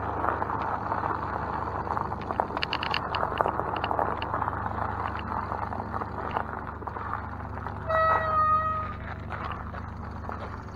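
Vehicle noise: a steady low hum with light rattles and clicks, and one short pitched beep, under a second long, about eight seconds in.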